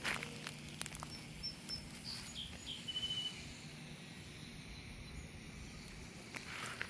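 A small bird giving a few short, high chirps, some falling in pitch, from about a second in, over faint steady background hum, with a few soft rustling steps at the start.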